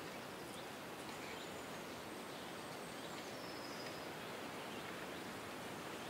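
Forest ambience: a steady rustle of wind through the trees, with a few faint, high, thin bird calls in the middle, one falling in pitch.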